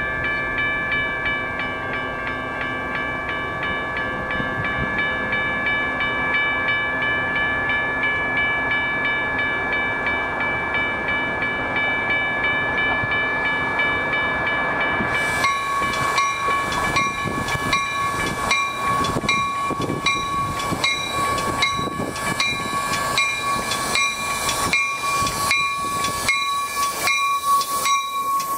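Metra commuter train approaching and rolling past the station platform, with a grade crossing's warning bell ringing steadily over it. About halfway through, as the cars draw close, a fast regular clicking and a high hiss join in and carry on to the end.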